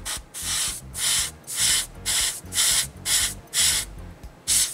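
Airbrush hissing in short bursts, about two a second, as the trigger is pulsed to spray black lacquer onto a small part.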